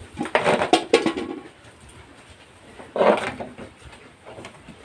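Metal milking bucket knocking and clattering as it is handled and set under the cow, a run of metal knocks in the first second or so; a second, shorter burst of sound comes about three seconds in.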